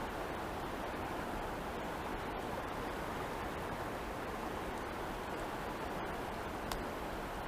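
Steady, even rush of water, unchanging throughout.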